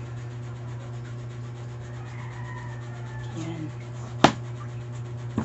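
Kitchen knife slicing lengthwise through a peeled bottle gourd (upo), a faint rubbing scrape of the blade through the flesh, with one sharp knock a little after four seconds in. A steady low hum runs underneath.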